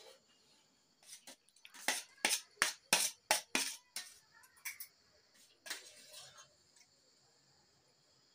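Close eating sounds at a meal: a quick run of sharp clicks and crunches, about three a second, from chewing the fried wheat-flour kauri and from hands and a spoon on steel plates, then a softer chewing noise a little after the middle.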